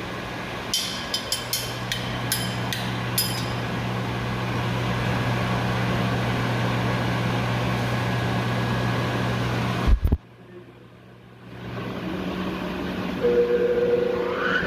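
Steady hum of running pump motors, with a quick series of metallic clinks in the first few seconds. About ten seconds in there is a thump and the sound cuts out for a second or so before the hum returns, and a steady higher tone joins near the end.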